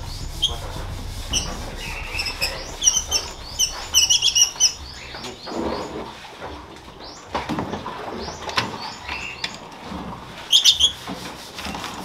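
African lovebirds chirping in short, high-pitched bursts, with a dense run of calls a few seconds in; the birds are unsettled by being handled and moved. A wire cage knocks and rattles as it is handled, around the middle.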